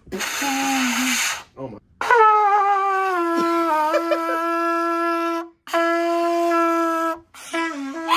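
Trumpet blown in long held notes. The first note slides down at its start and then holds, a second note at the same pitch follows after a short break, and a few short notes come near the end.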